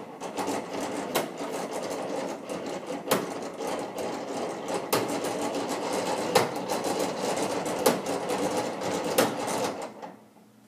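Clayton Boyer-design wooden mechanical calendar and orrery, with purpleheart and Brazilian cherry gears and maple levers, running through a day advance after its lever is thrown with a click. Continuous wooden clattering of gears and levers, with a heavier knock about every second and a half, stopping near the end. It runs a little clunky because of a broken gear.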